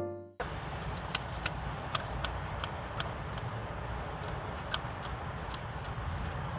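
A held music note fades out and cuts off early on; then a steady background rush with a scattering of light, sharp clicks and ticks, irregularly spaced.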